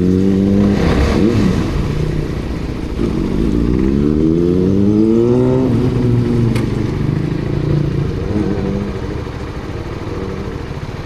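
Kawasaki ZX-6R inline-four engine accelerating with rising pitch up to about a second in, then breaking off. A second rising pull runs to near six seconds in, after which the engine settles lower and quieter.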